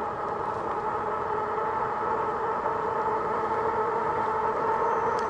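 Fat-tire e-bike cruising at about 21 to 22 mph, its knobby fat tires giving a steady droning hum that grows slightly louder as it speeds up.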